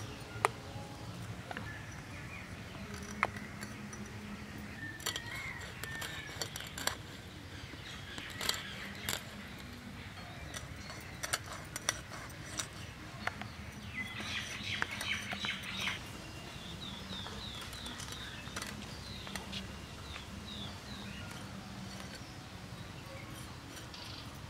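Irregular short scrapes and clicks of tilapia being scaled against an upright boti blade. Birds chirp in the background partway through, including a run of short repeated chirps.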